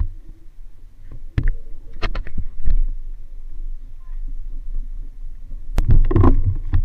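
Rumble and handling noise on a hand-held action camera, with scattered knocks of spearfishing gear and footsteps on gravel, and a louder burst of clatter near the end.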